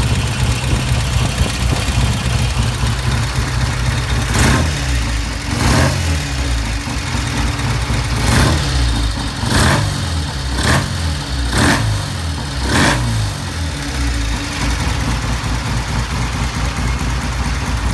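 Vintage British motorcycle engine idling steadily, blipped seven times between about four and thirteen seconds in, each blip revving up briefly and dropping back to idle.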